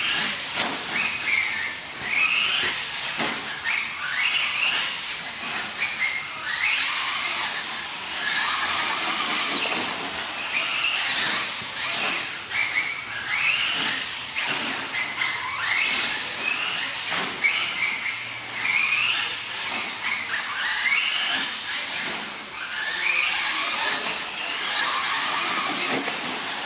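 Team Associated SC10 4x4 RC short course truck's Novak 7.5 HV brushless motor whining, rising in pitch again and again as the truck accelerates and falling away as it lets off, over a steady hiss of tyres on the dirt track.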